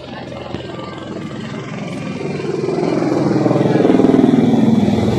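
Passenger helicopter flying in overhead, its rotor beating in rapid pulses under the engine whine. It grows steadily louder and drops in pitch near the end as it comes overhead.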